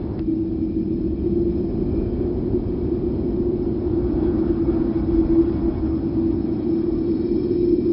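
Wind sound effect: a steady, low rumbling rush with a held, hum-like tone, swelling slightly toward the end.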